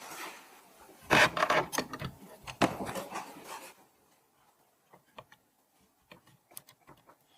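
Hands handling PC parts: rubbing and scraping mixed with sharp clicks for a couple of seconds, then a scatter of small clicks and taps.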